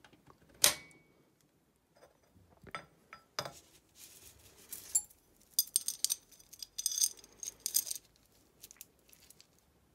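Metal parts of a Fiat 126 engine's timing set being handled: a sharp metal clack just under a second in, then light clicks, and the steel roller timing chain rattling and clinking from about four to eight seconds in.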